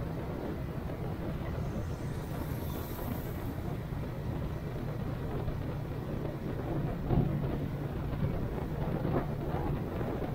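A vehicle running at a steady speed, its engine hum under steady road and wind rumble, with one brief knock about seven seconds in.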